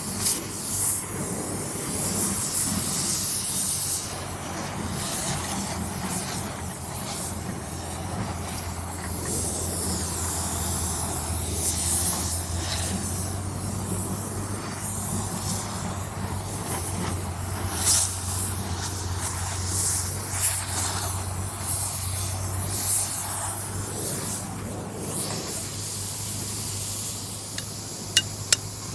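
Gas torch flame hissing steadily as it heats a new ring gear so it expands to slip onto the tractor flywheel. Near the end, a few sharp hammer taps on the ring gear.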